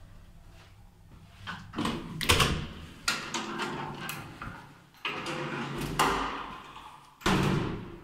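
Manual swing landing door and doors of a 1978 ZREMB passenger lift being opened and let go: a run of clunks, rattles and bangs of metal doors, with the loudest bang near the end as the landing door falls shut.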